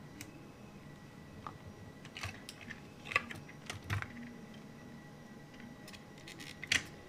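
Light, irregular clicks and crackles of Hot Wheels blister packs being cut open with a hobby knife and the plastic bubbles and card handled. The clicks cluster a couple of seconds in and again near the end.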